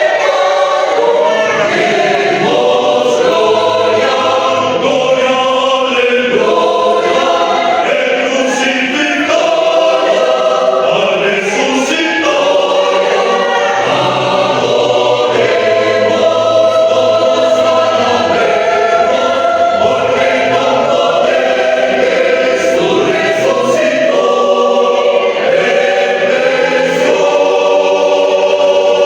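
A choir singing, several voices holding long notes together and moving from chord to chord every second or two.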